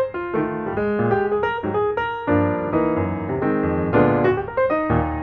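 Background piano music: a run of single struck notes over held chords.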